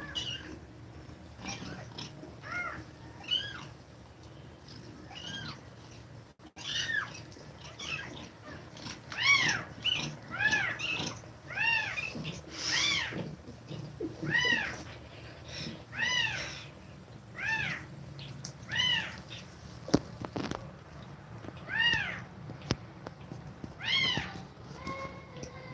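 Young kittens mewing over and over in short, high-pitched cries that rise and fall, about one a second. The cries are sparse at first and come thick and fast after a brief break about six seconds in.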